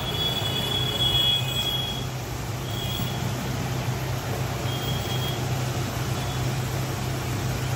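Steady low mechanical hum with a faint, even background noise, and a thin high whine that sounds for about two seconds at the start and again briefly around three and five seconds in.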